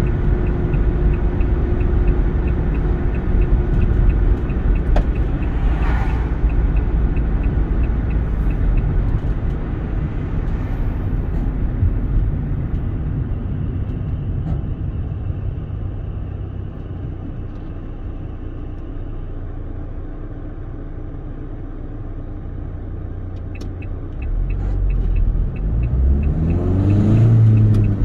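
Car driving on the road: a steady engine and tyre rumble that eases off through the middle, then the engine revs up with a rising pitch as the car accelerates near the end. A light, regular ticking sounds in the first part and again near the end.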